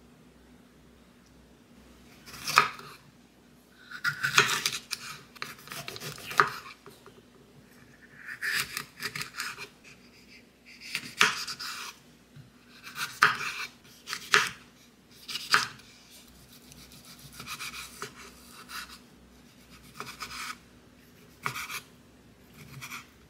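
Kitchen knife cutting bell peppers and beef on a wooden cutting board: irregular sharp knocks of the blade on the board, some in quick runs, with light scraping between them.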